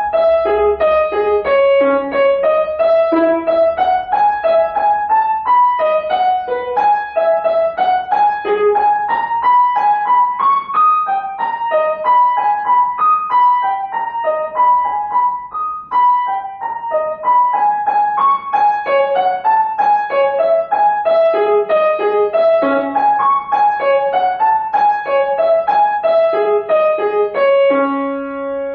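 Solo piano playing a light, quick melody of single notes, closing on a held chord near the end.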